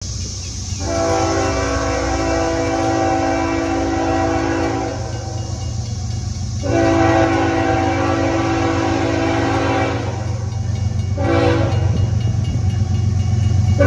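BNSF diesel locomotive's air horn blowing the grade-crossing signal: two long blasts, a short one, then a long one starting at the very end, the standard warning for an approaching public crossing. A steady low rumble runs underneath.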